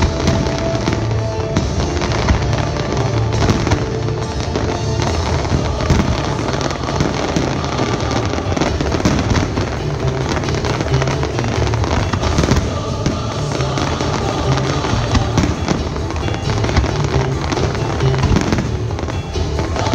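Aerial firework shells bursting in rapid, continuous succession, with music playing along with the display.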